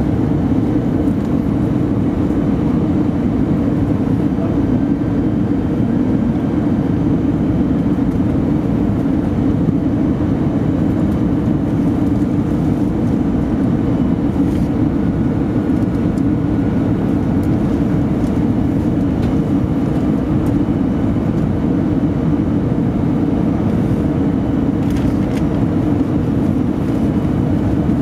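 Cabin noise of an Airbus A320 in flight on approach: a steady, low drone of jet engines and airflow, with faint steady whines above it.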